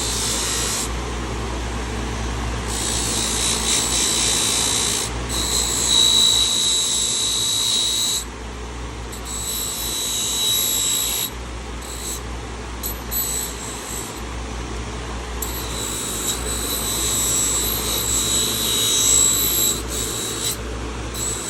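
Dremel rotary tool running against a rusty carbon-steel pocket knife to clean off rust and gunk. It gives a high steady whine in stretches of a few seconds, stopping and starting several times, over a steady low hum.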